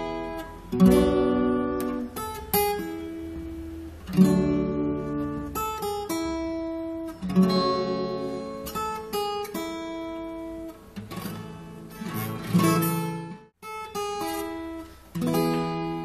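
Acoustic guitar music: strummed chords with plucked notes between them, breaking off briefly about 13 seconds in before going on.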